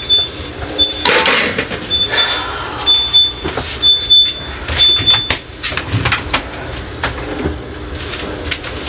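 Containers and kitchen items being handled, with clatters, knocks and sliding scrapes. A short high beep repeats irregularly during the first five seconds or so.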